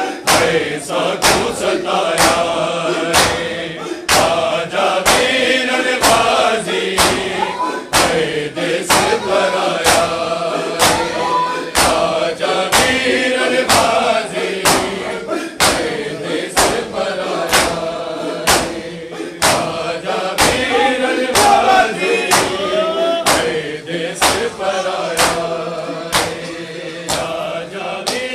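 Crowd of men chanting a mourning noha in unison while beating their chests in matam, the hand-on-chest slaps keeping a steady, even beat under the voices.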